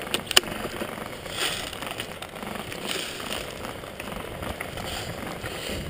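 Footsteps crunching and rustling through dry fallen leaves, with two sharp clicks close together just after the start.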